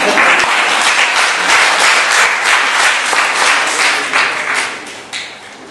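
Audience applauding a joke: a burst of clapping that stays loud for about four seconds, then dies away near the end.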